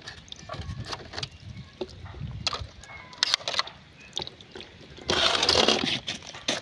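Water sloshing and dripping in a plastic tub as a slatted fish scoop is dipped in and lifted out, with small knocks and clicks throughout. A longer, louder splash about five seconds in.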